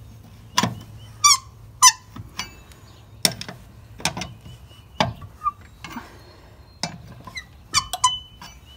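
Metal tools working on a VW bus wheel's lug bolts and hubcap clips: a string of separate clanks and clicks from the wrench and socket, with two short high squeaks a little over a second in.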